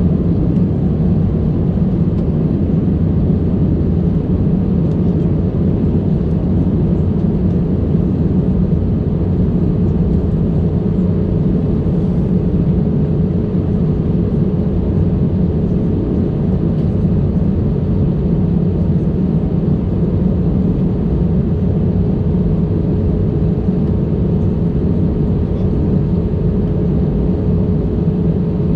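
Airbus A320 cabin noise on approach, heard from a window seat over the wing: a steady low drone of engines and airflow, with a faint steady tone above it.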